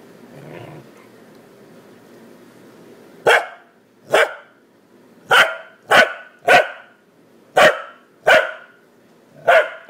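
Corgi barking: a string of about eight short, sharp barks starting about three seconds in, each roughly a second apart or less.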